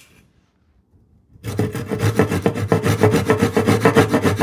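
Hand saw cutting into wood in rapid, regular strokes, starting about a second and a half in.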